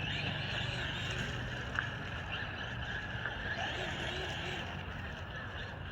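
Traxxas Maxx RC monster truck's brushless electric motor and drivetrain running steadily, with a single small click about two seconds in.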